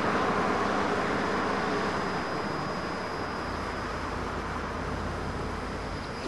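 Volvo tracked excavator's diesel engine running steadily.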